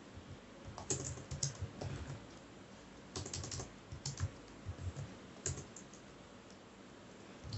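Computer keyboard typing: faint, scattered keystrokes in a few short runs with pauses between them.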